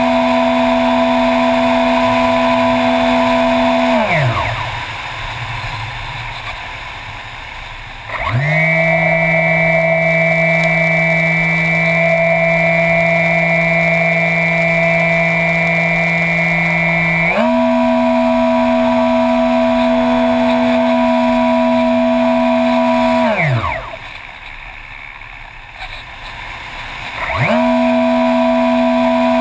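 A small model airplane's propeller motor drones at a steady pitch, heard from on board. About 4 s in the throttle is cut and the pitch slides down to nothing, leaving a rush of air for about four seconds, then the motor spins back up. It holds a different pitch until about 17 s, then returns to the first. It is cut and restarted the same way again in the last few seconds.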